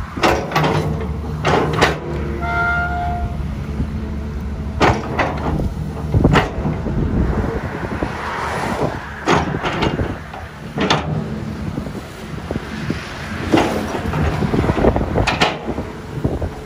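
XCMG XE215C crawler excavator digging canal mud: its diesel engine runs steadily under load, and the bucket and boom linkage clank and knock about ten times as the bucket bites, lifts and dumps. A brief high tone sounds for under a second about two and a half seconds in.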